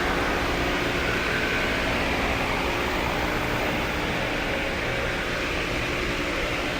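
Steady machine noise: an even hiss with a faint, constant low hum, unchanging throughout.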